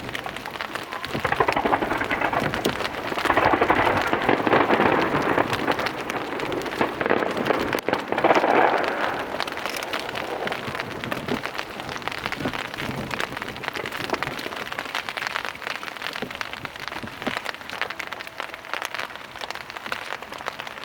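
Rain pattering heavily in a dense crackle, swelling louder a few times in the first half, about two, four and eight seconds in.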